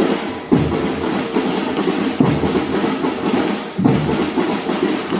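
Batucada samba percussion ensemble playing: dense, loud drumming with sharp accented hits every second or two.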